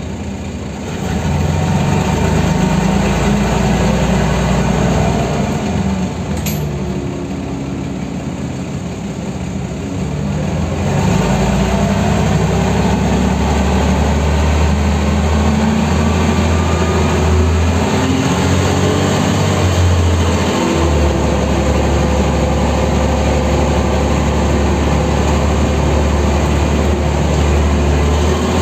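Mercedes-Benz O305 city bus heard from inside the cabin: the diesel engine pulls away from a stop about a second in, eases off around six seconds in, then pulls again from about eleven seconds and runs on steadily under load, its note rising and falling with the gears.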